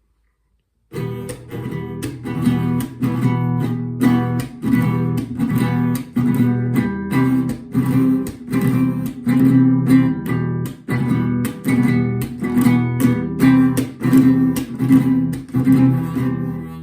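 Acoustic guitar strummed in a steady rhythmic pattern on E minor and C chords, with sharp muted percussive strokes between the strums; it starts about a second in.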